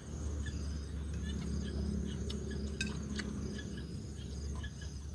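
Crickets and other insects trilling steadily, with soft chewing and small mouth sounds and one light click about three seconds in, like a spoon touching the bowl.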